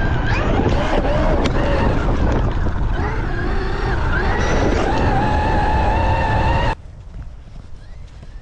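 Traxxas XRT electric RC monster truck at speed, heard from a camera mounted on it: the brushless motor and drivetrain whine, rising and falling with the throttle, over a noisy rush of tires and spray in snow. The sound stops abruptly near the end, leaving a much quieter outdoor hiss.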